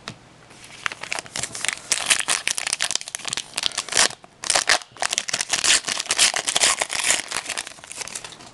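Trading-card pack wrapper crinkling and rustling in the hands in quick, dense crackles, with a brief lull about four and a half seconds in.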